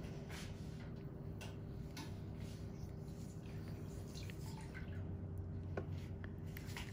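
Steady low hum of room noise with faint, irregular small ticks and clicks scattered through it.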